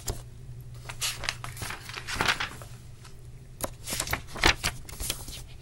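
Pages of a paperback picture book being turned and handled: paper rustling and crinkling in several uneven bursts, over a low steady hum.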